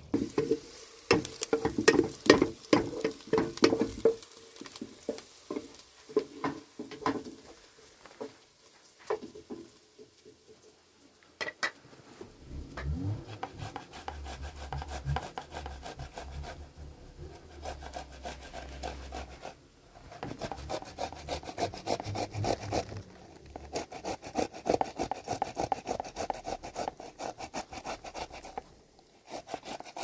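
Loud knocks and clatter in the first few seconds, then fresh tomatoes being grated on a handheld grater into a metal bowl: long runs of fast, repeated rasping strokes.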